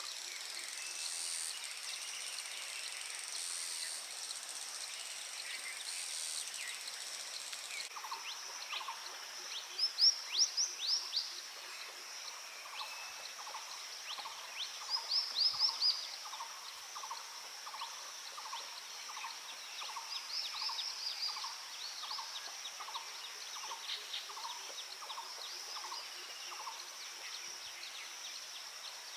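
Wild birds calling over a steady high insect drone. Three short bursts of rapid, high chattering notes, about five seconds apart, are the loudest sounds, while a lower single note repeats about one and a half times a second from about a quarter of the way in.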